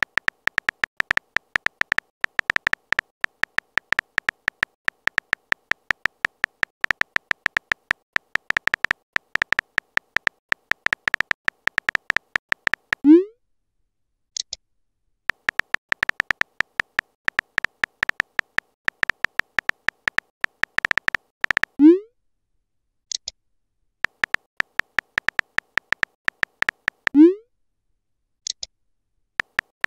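Simulated phone-keyboard typing clicks from a texting-story app, rapid and continuous. The clicks break three times for a short rising pop as a message is sent, each followed a second or so later by a brief high tick.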